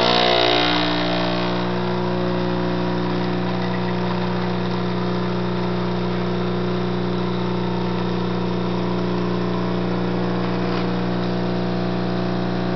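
Mr. Coffee espresso machine's pump buzzing steadily while pulling a double espresso shot, a little louder for the first second or so.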